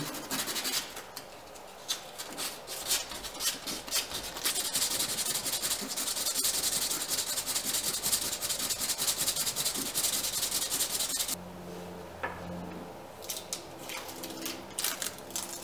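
Hand sanding over the cured epoxy around a chainplate slot in a fiberglass deck, with quick back-and-forth scratching strokes. The strokes stop about eleven seconds in, and a few scattered ones follow near the end.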